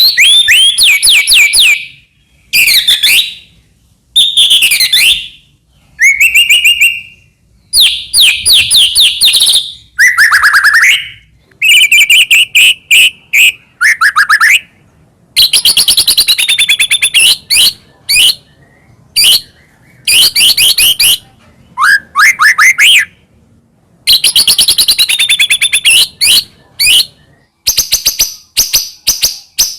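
White-rumped shama (murai batu) singing loudly in full, varied song: phrases of rapid trills and rising and falling whistles, each lasting one to two seconds, with short pauses between them and quicker, choppier notes near the end.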